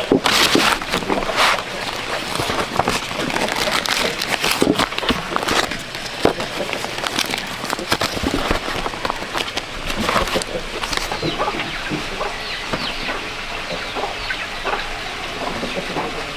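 Chickens clucking amid scattered clicks and rustling.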